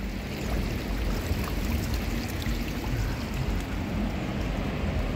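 Steady wash of running water from an infinity pool's overflow spilling into its gutter, with no distinct events.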